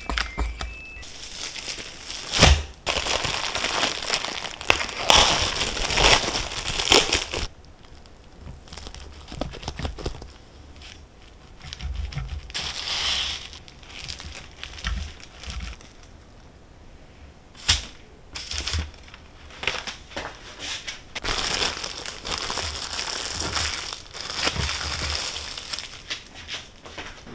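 Crinkling and rustling of something being handled, in irregular bursts, with a couple of sharp knocks.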